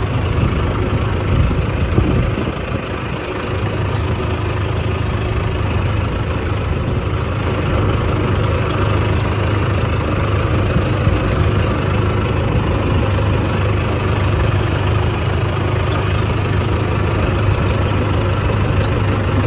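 Mahindra Arjun Novo 655 tractor's four-cylinder diesel engine running steadily as the tractor drives along, heard from the driver's seat.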